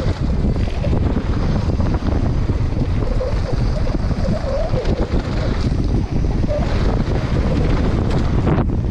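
Heavy wind rush over the action camera's microphone during a fast mountain-bike descent, with the rumble of tyres on a dirt trail underneath.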